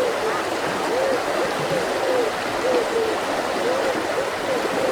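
Mountain river flowing: a steady rush of water, with short low arched notes recurring irregularly, about twice a second.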